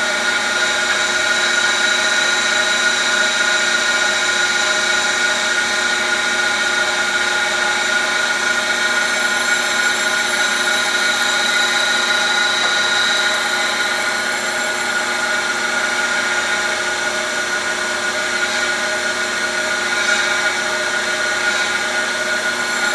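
Cylindrical grinder running, its wheel spinning with a steady whine while taking very light finishing passes on a shaft, down to tenths of a thousandth.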